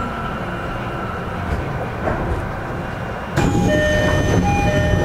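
Tokyo Metro 10000 series electric train running on the rails, heard from inside a passenger car. About two-thirds in, the noise suddenly gets louder and a set of steady ringing tones begins, sounding in short repeated spells.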